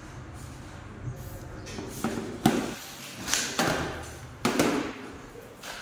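Handling noises: a few short rustles and knocks, the sharpest about two and a half seconds in, as a plastic remote control and the packing around a boxed air-conditioner indoor unit are handled.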